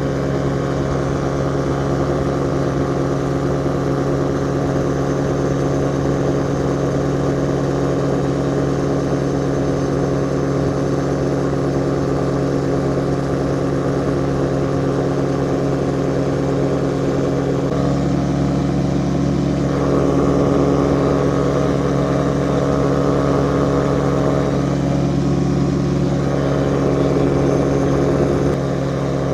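Ultralight aircraft engine running steadily at cruise power in flight, a constant drone with wind noise. Its tone shifts slightly about two-thirds of the way through and again near the end.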